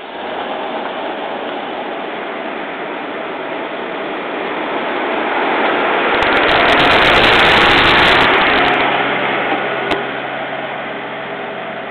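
KiHa 110 series diesel railcar's engine running at the platform, with a loud rush that swells and fades about six to eight and a half seconds in, then a steady low hum.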